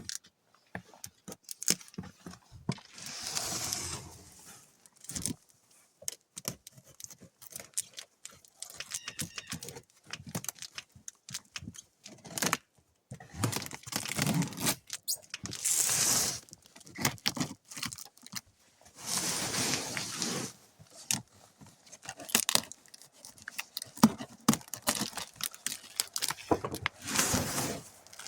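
A large cardboard shipping box being opened by hand: packing tape and cardboard tearing in several long rips, with scattered clicks, scrapes and rustling in between.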